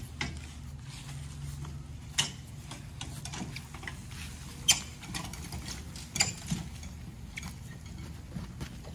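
Scattered sharp clicks and knocks of equipment being handled and wheeled on a cart and hand truck, five or six spaced a second or two apart, over a steady low hum.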